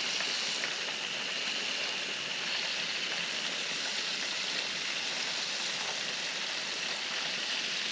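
Hot oil sizzling steadily as battered walleye pieces wrapped in chicken skin deep-fry, an even high hiss.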